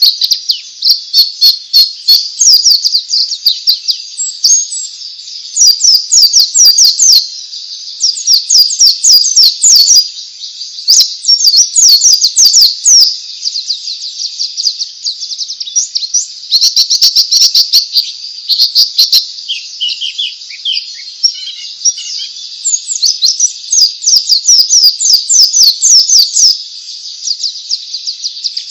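White-eye (pleci) singing in the wild 'ngalas' style: dense runs of quick, high chirps and trills, broken every few seconds by brief pauses.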